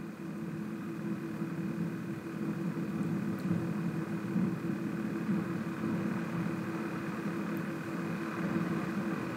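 Steady mechanical background hum with a constant low tone and a fainter high whine over it.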